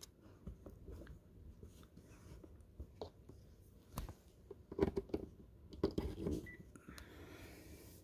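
Several faint clicks and scrapes of electrical plugs being pushed into the sockets of a wall outlet, among them a flat extension-cord plug, with a light rustle of cord. The clearest clicks come about five to six seconds in.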